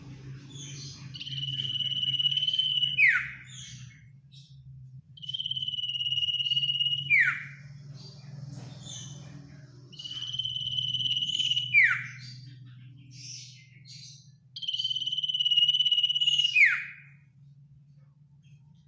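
Common iora (cipoh) singing its long drawn call four times: each a steady high whistle of about two seconds that ends in a quick downward slur. A low steady hum runs underneath.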